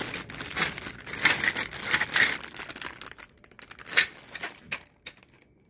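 Clear plastic parts bags crinkling and rustling as they are handled, with a sharp click about four seconds in; the crinkling dies down near the end.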